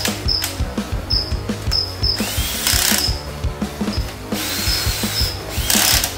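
Cordless drill-driver whirring in short bursts as it runs in the side-cover bolts on a motorcycle engine case, over background music with a steady beat.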